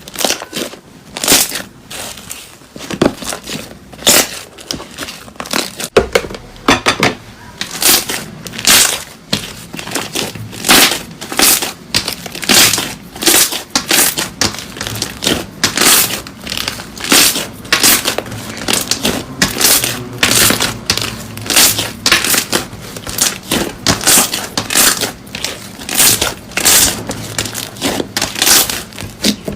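Slime being squeezed and pressed by hand, giving repeated crisp crunching and crackling sounds, roughly one or two a second.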